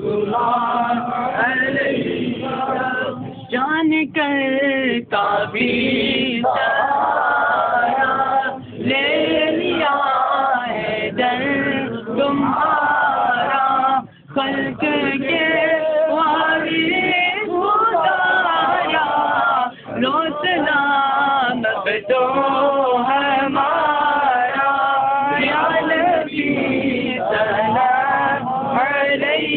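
A group of men singing a devotional chant together, unaccompanied, the melody gliding up and down with only a few brief breaths.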